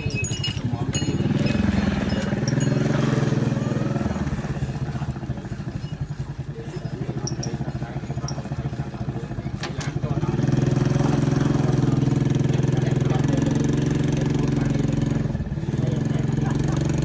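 A small engine running steadily, growing louder about ten seconds in.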